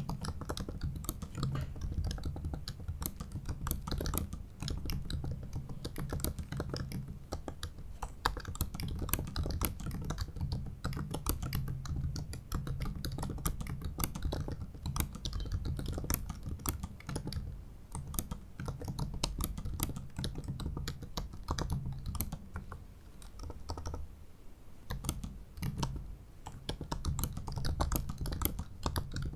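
Continuous typing on a 2017 MacBook Pro 15-inch's built-in butterfly-switch keyboard: a fast, dense run of short key clicks that thins briefly about four fifths of the way through.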